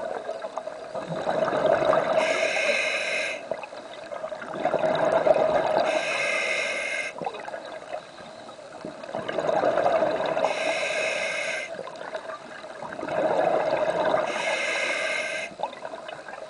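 A scuba diver breathing through a regulator, heard underwater. Each breath brings a hiss as the regulator delivers air, then a rush of exhaled bubbles, at about one breath every four seconds, four in all.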